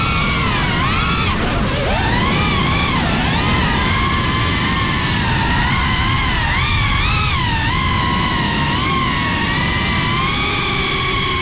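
Drone's electric motors whining, the pitch rising and falling together with the throttle, over a steady rushing of propeller wash and wind.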